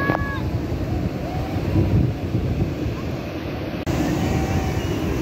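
Ocean surf breaking and washing up the beach as a steady rush of water, with wind buffeting the microphone. There is a brief dropout just before four seconds in.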